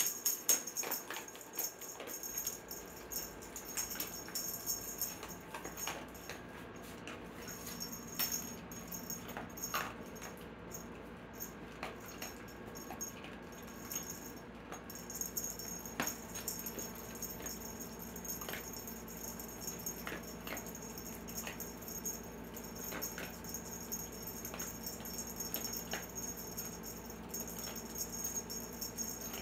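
Cat playing with a wand toy and her cat tunnel: scattered light rustles and clicks, over a steady faint background hum.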